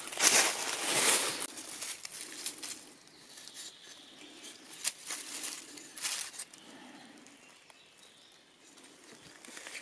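Footsteps crunching through dry fallen leaves, loud for about the first second and a half, then stopping; after that only a few short, softer leaf rustles.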